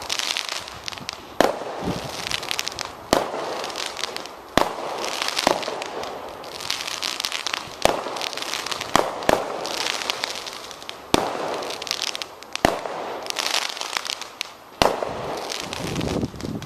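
Fireworks going off: a sharp bang about every one and a half seconds, each followed by a spell of dense crackling.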